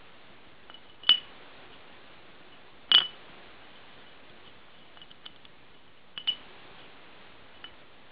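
Used 18x14 variator rollers clinking against the metal TJT variator housing as they are set into their ramp slots by hand: a handful of sharp clicks a second or two apart, the loudest about three seconds in.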